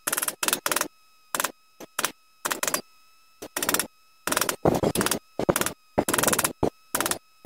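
A hand tool worked at a mountain bike's headset, on a stubborn headset being loosened for removal: more than a dozen short bursts of rapid clicking, each lasting a fraction of a second, with brief pauses between.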